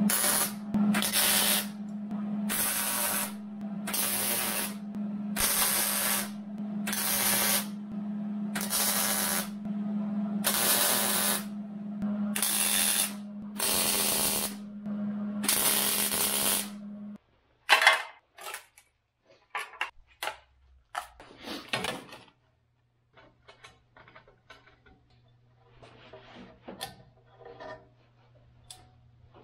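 Electric arc welder laying about a dozen short welds, a second or so each with brief gaps between, over a steady hum from the welder that stops when the welding does. These are tack welds fixing weld nuts and a license plate bracket to a steel tube bumper. After the welding ends, past the halfway mark, only scattered clicks and knocks follow.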